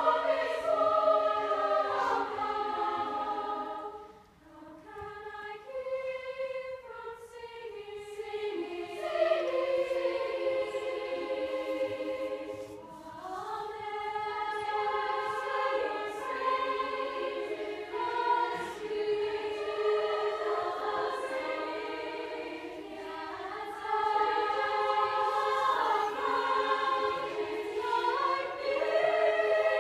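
A large choir singing held chords, with a short hush about four seconds in before the voices come back in and build again.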